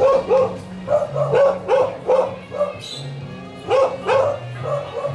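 A dog barking repeatedly in short, sharp barks, often two or three in quick succession, over background music with sustained low notes.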